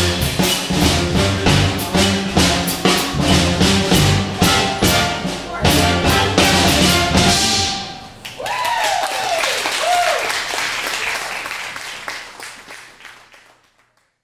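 Jazz big band with saxophones, trombone, trumpets, guitar, bass and drum kit playing the final bars of a New Orleans funk tune, with hard drum hits before the band stops about seven and a half seconds in. Applause and cheering follow, with a few rising-and-falling whoops, and fade out near the end.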